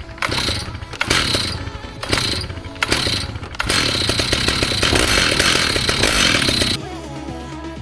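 Chainsaw mill's engine running hard at full throttle, cutting, with a music track underneath. The saw stops abruptly about seven seconds in, leaving only the music.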